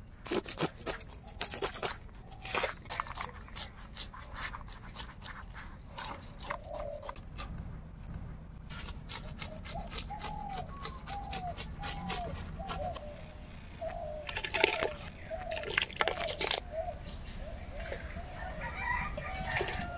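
A knife scraping scales off a fish in many quick scratchy strokes, with a few brief bird chirps. From about halfway a hen clucks over and over, and a steady high whine joins in soon after.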